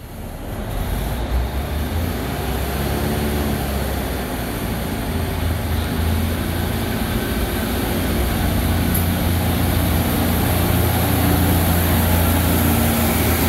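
Northern Class 156 Sprinter diesel multiple unit moving past along the platform, its Cummins diesel engines running under power: a steady low drone with a pitched engine note above it, gradually growing louder.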